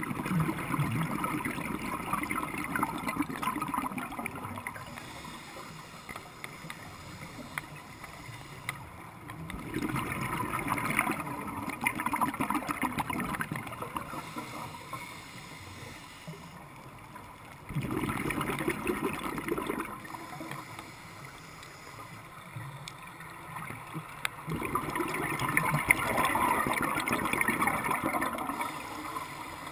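Scuba regulator exhaust bubbles gurgling underwater in four long bursts a few seconds apart, one for each exhalation, with quieter pauses between them while the diver breathes in.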